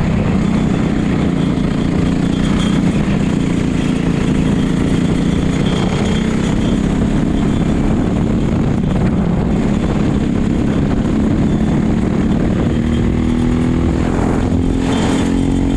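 A racing go-kart's engine running hard at speed, heard onboard the kart. It holds a fairly steady pitch, then wavers up and down in the last few seconds as the throttle changes.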